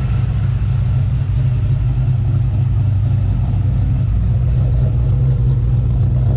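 Cold Whipple-supercharged engine with an aggressive SRT Max Plus cam, heard from the exhaust at the rear, idling steadily at a raised idle.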